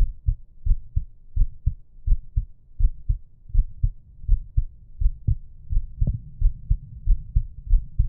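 Human heartbeat at rest, a steady run of low double thumps (lub-dub) repeating a little faster than once a second.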